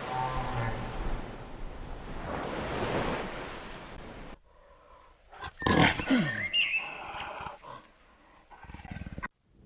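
A wild animal roaring, a rough, noisy sound that lasts about four seconds. It cuts off abruptly to a quieter clip of short scattered animal calls.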